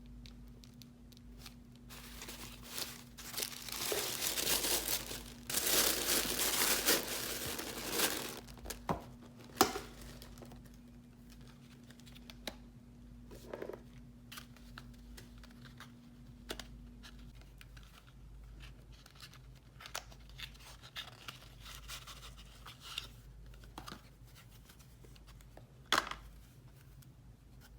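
Cosmetics packaging being unwrapped: wrapping crinkling and tearing for several seconds, then scattered light clicks and taps as the items are handled, with one sharper click near the end.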